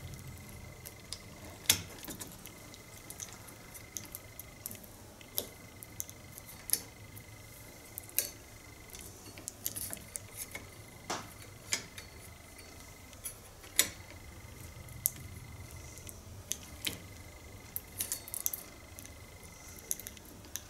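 Irregular light clinks and taps of small metal parts, a hedge trimmer's steel cutting blade and gear housing, being handled and fitted by hand, with a faint steady high-pitched tone in the background.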